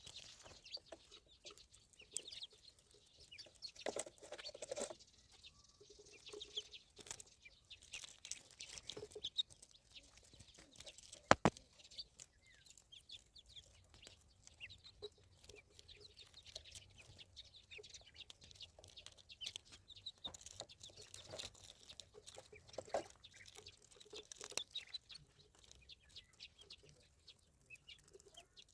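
Ducklings peeping, faint short calls, with scattered small ticks and one sharp click about eleven seconds in.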